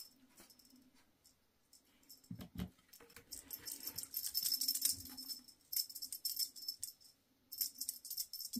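A cat teaser toy jingling as it is shaken in irregular bursts, with a couple of soft thumps a little over two seconds in.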